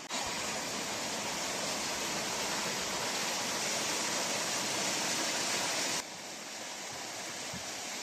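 Waterfall pouring into a rock pool: a steady rush of falling water. It drops somewhat in level about six seconds in.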